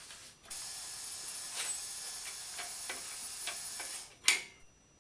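Engine crane and its chain with the hoisted engine: scattered light metallic clicks and ticks over a steady hiss that stops just before four seconds in, then one sharp, loud click.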